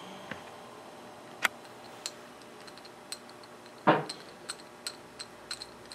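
Light, scattered clicks and taps of small metal and glass parts being handled on a homemade bubble level, with one duller knock about four seconds in and a run of small ticks near the end.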